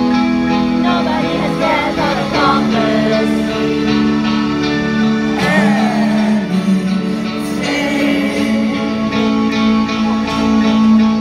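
Alternative rock band playing live, with long held guitar and keyboard notes under a sung vocal line that comes in and out, heard from within the audience in a large hall.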